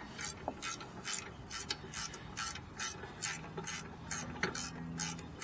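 Ratcheting wrench clicking in short, even bursts about two to three times a second as it is swung back and forth to back out a loosened brake caliper bracket bolt.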